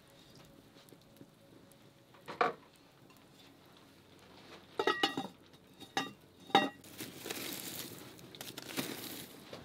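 Aluminium pot lid clanking against a cooking pot, once and then three or four times in quick succession, each knock ringing briefly. After that comes the steady hiss and crackle of a wood fire burning under the pot.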